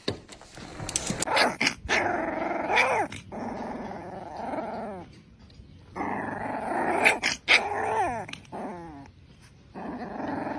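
Rottweiler puppy growling as it play-bites a hand, in two bouts of small, wavering growls with a short pause between.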